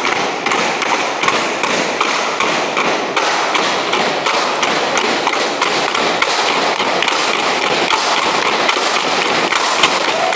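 Bamboo poles of a tinikling dance knocked on the wooden floor and clapped together in a steady rhythm, about three to four knocks a second, over steady background noise.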